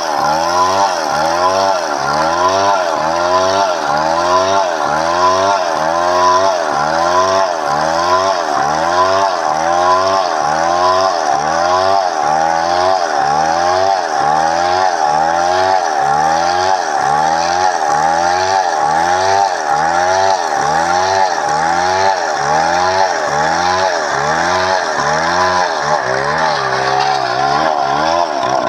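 Chainsaw cutting padauk wood, running loud and steady, its engine pitch rising and falling in an even rhythm a little more than once a second as the chain works through the cut.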